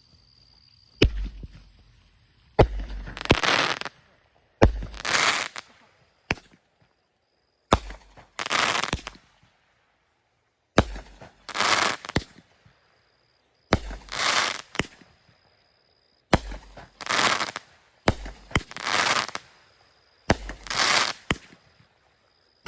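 Showtime Fireworks' Texas Rattlesnake cake firing its shots one after another, about ten in all, a second or two apart. Each shot is a sharp launch bang followed by a hissing burst about a second long.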